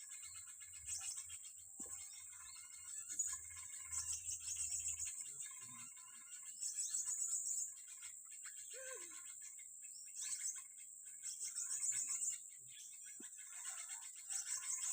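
Small birds chirping and trilling, with louder high trills coming in bursts every second or two over a steady high insect-like buzz.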